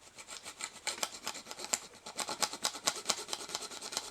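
Small hand file rasping in quick, short strokes, about six a second, on the metal of a 1:64 die-cast toy car, trimming a cut slot to width.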